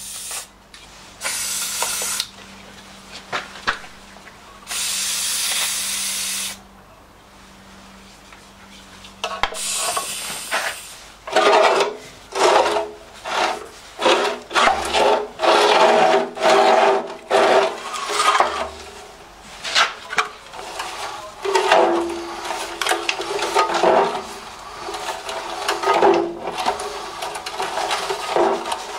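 Hand work on a seized stationary diesel engine: two short steady hisses, then a long run of irregular rubbing, scraping strokes about one or two a second.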